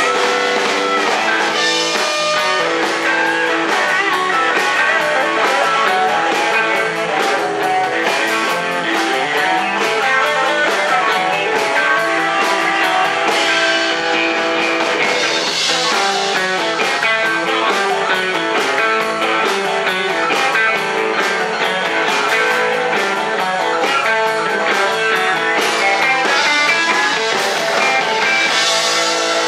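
Live rock band playing an instrumental passage, with Telecaster-style electric guitars picked at full band volume.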